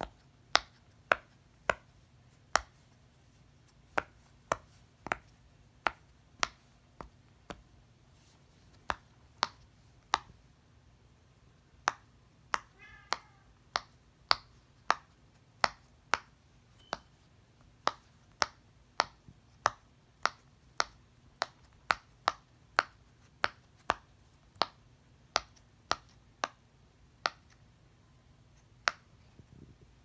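Silicone pop-it fidget toy bubbles pressed in with a finger one at a time, each giving a sharp pop; the pops come irregularly, about one or two a second, with a few short pauses.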